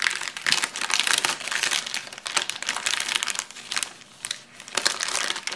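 Thin plastic wrapping crinkling and rustling as hands handle and pull at it around a spiral-bound planner, in irregular crackly bouts that ease off briefly about four seconds in.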